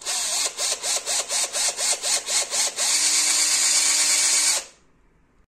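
Cordless drill boring into a hollow plastic chair leg. It runs in rapid pulses, about five a second, then runs steadily for under two seconds before stopping suddenly. The bit snaps off inside the plastic during this drilling.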